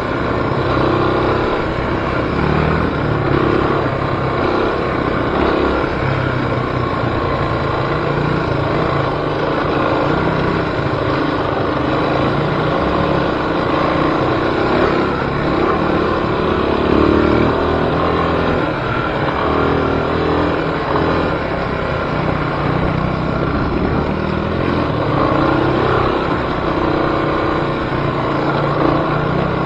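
Off-road vehicle engine running steadily while driving, its pitch rising and falling with the throttle.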